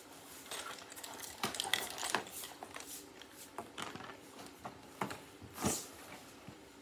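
Small objects being handled close to the microphone: a run of clicks, taps and rustles, the loudest about five and a half seconds in.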